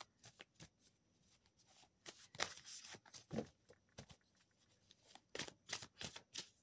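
Faint, scattered clicks and rustles of a deck of cards being shuffled by hand, in two short clusters a few seconds apart.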